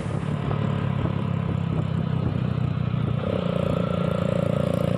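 Motorcycle engines running steadily while riding along a road, a low even hum; a higher steady tone joins about three seconds in.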